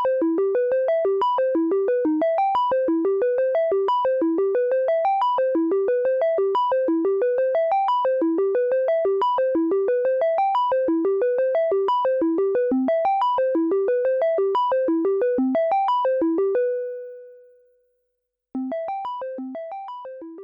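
Elektron Monomachine synthesizer running its arpeggiator: a fast, even stream of short notes, about six a second, climbing and falling in repeating patterns. About two-thirds of the way through it stops on one held note that fades out, and after a brief silence the notes start again and die away.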